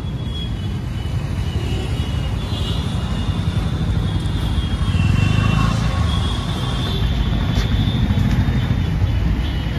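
Engine noise: a steady low rumble that swells slightly about halfway through, with street traffic.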